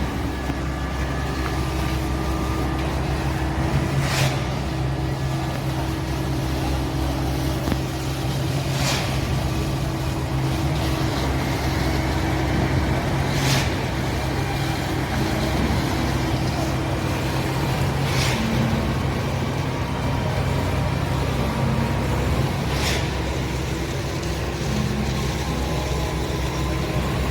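A steady engine hum, with a short tick about every four and a half seconds.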